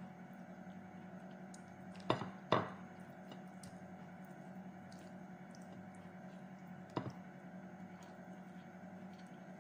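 Eating by hand: chewing and small mouth sounds while rice is picked up with the fingers from a plate. Sharp taps come twice about two seconds in and once near seven seconds, over a steady low hum.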